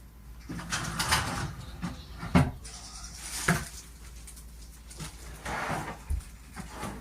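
Wooden kitchen cabinet shutters being handled and fitted: a few scrapes and sharp knocks, with a short dull thump near the end.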